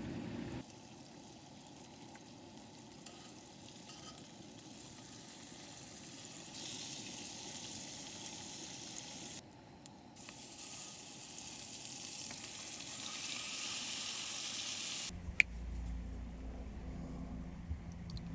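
Bison burgers sizzling as they fry, a steady hiss that grows louder, broken briefly partway through. Near the end it gives way to a low rumbling noise with a single sharp click.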